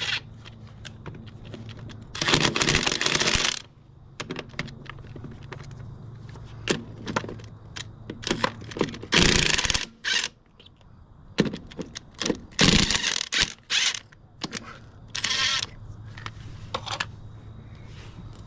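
Cordless impact wrench hammering on the rusted lug nuts of a century-old cast Dayton-style wheel hub, in several rattling bursts, the longest about a second and a half, with metallic clinks and knocks of socket and nuts between. The nuts are breaking loose easily under it.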